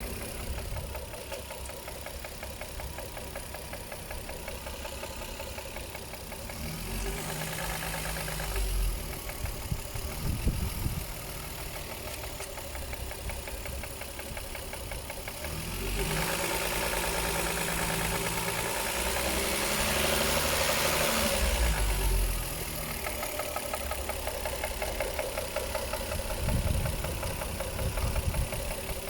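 Toyota 1JZ-GTE VVT-i turbocharged straight-six running with a rapid, regular knock that the owner puts down to the exhaust camshaft. Twice it is held at higher revs for a few seconds, about a quarter of the way in and again from the middle for several seconds, with short blips of the throttle in between.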